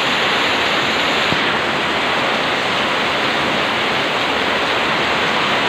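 Heavy typhoon rain pouring steadily onto roofs and into a yard, a continuous loud rushing hiss.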